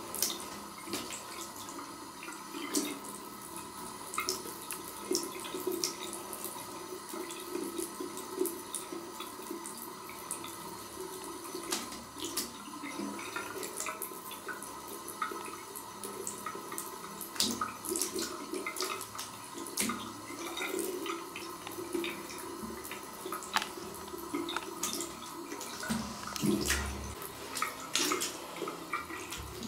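A thin stream of water runs from a bidet tap into the ceramic bowl, broken by many small splashes and clicks as a cat paws at the stream. There is a dull thump near the end.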